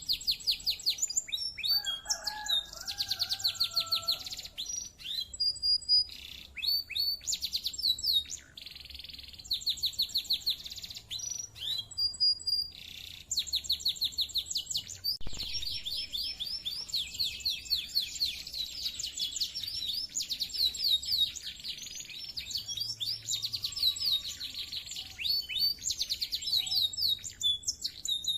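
Domestic canary singing continuously in long phrases of rapid repeated notes and trills, with short pauses between phrases.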